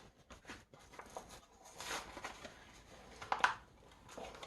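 Faint handling noises of a hard-to-open retail package being picked and pulled at by hand: scattered small clicks and rustles, with a louder crinkle about three and a half seconds in.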